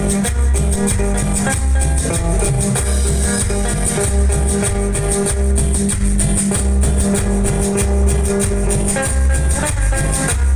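Loud Latin tropical dance music with shaken maracas, guitar and a steady pulsing bass beat, instrumental with no singing.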